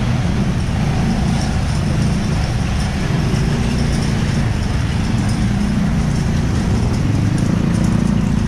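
Motor vehicle on the move: steady engine and road rumble, heavy in the low end.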